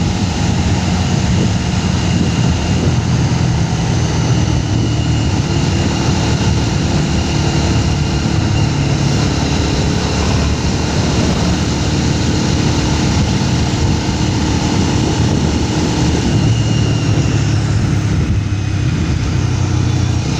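Motorcycle engine running steadily while riding, with constant wind and road noise over it. The engine note fades back a little midway, then grows strong again.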